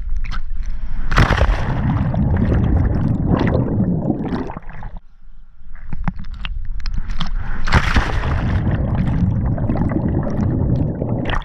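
Water sloshing and splashing close against the microphone, as of someone swimming in a lake. It comes in surges, strongest about a second in and again near eight seconds, with a brief lull around halfway.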